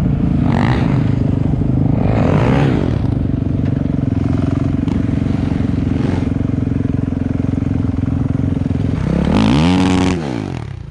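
Dirt bike engine running steadily, blipped briefly a couple of times, then revved hard about nine seconds in, its pitch climbing and dropping back.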